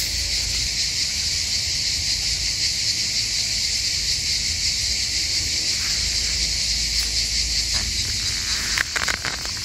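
Steady, high-pitched chorus of summer insects, continuous and unchanging, with a few brief rustles near the end.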